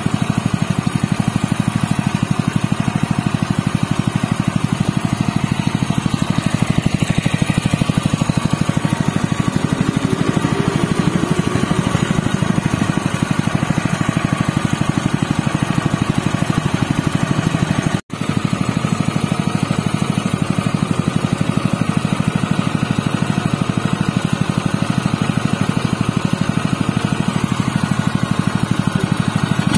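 Honda GP200 engine, a 196 cc single-cylinder four-stroke OHV petrol engine, running steadily. The sound drops out for an instant about two-thirds of the way through.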